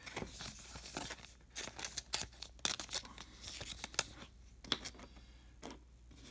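Trading cards being handled and shuffled by hand: irregular quick rustles and light snapping sounds as the card stock slides and flicks against itself.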